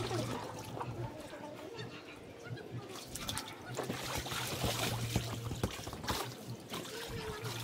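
Water splashing and trickling in a shallow inflatable pool as children move about in it, with small children's voices now and then.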